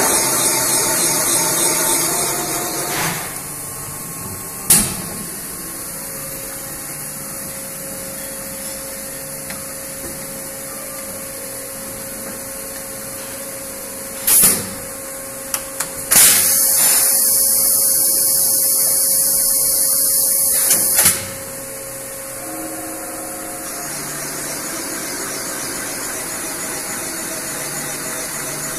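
Serdi valve-seat cutting machine: the spindle runs with its cutter on a cylinder-head valve seat and winds down about three seconds in, leaving a steady electrical hum with a sharp click. About halfway through, a loud air hiss lasts about five seconds as the machine's air cushion floats the head into position. Near the end the machine starts running again, more quietly.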